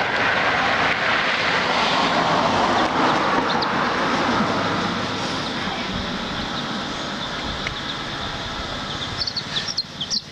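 A steady rushing noise like a passing vehicle that slowly fades, with chicks peeping now and then; the peeping gets busier near the end as the rushing drops away.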